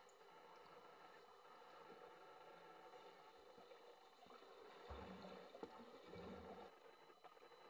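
Faint underwater hiss of a swimming pool, with a low rushing swirl of disturbed water about five seconds in, lasting under two seconds, as a freediver's monofin kicks past the camera.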